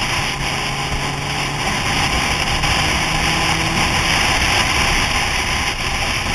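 Motorcycle riding at steady road speed, heard from the rider's helmet: a steady engine note under heavy wind and road noise.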